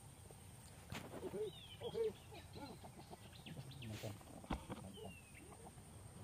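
Faint forest ambience: a few high bird chirps about a second and a half in and a short falling whistle near the end. Under them are a few low voice-like sounds, loudest about two seconds in, and a couple of sharp clicks.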